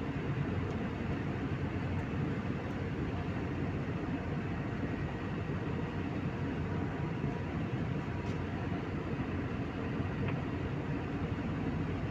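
Steady cabin noise of a jet airliner in cruise, turbofan engines and airflow over the fuselage, heard from a window seat beside the engine. It is a deep, even rush with a faint steady whine in it.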